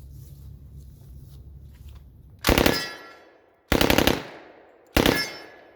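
Thompson M1A1 submachine gun firing .45 ACP on full auto in three short bursts about a second apart, each a quick string of shots with an echo tailing off after it.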